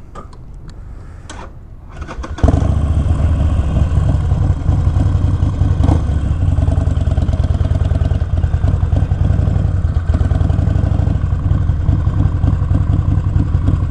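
2020 Harley-Davidson Iron 1200's air-cooled 1200 cc V-twin being started: a few clicks, then the engine catches about two and a half seconds in and settles into a steady idle.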